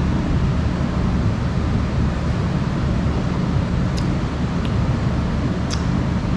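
Steady low rumbling background hum with a faint pitched drone, and two or three faint light clicks about four and six seconds in.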